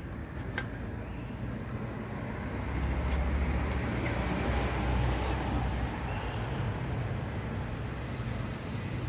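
A motor vehicle's engine rumble swelling about three seconds in and easing off again, like traffic passing close by, with a few light clicks over it.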